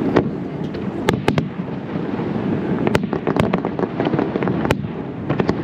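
Zambelli fireworks display: a rapid scatter of sharp cracks and pops, about a dozen, over a steady low rumble of bursts.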